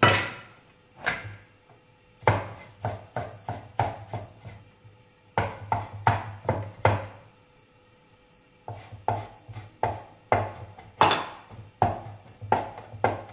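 Kitchen knife mincing garlic and mint on a wooden chopping board: runs of sharp knocks, several a second, broken by short pauses, the longest about two-thirds of the way through.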